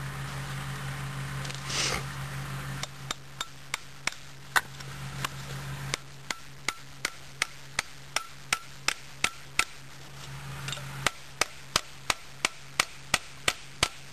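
ST3-F fixed-blade knife chopping into the end of a wooden stick. It makes a run of sharp knocks with a slight ring, about three a second, which starts about three seconds in and pauses briefly just before the last few seconds.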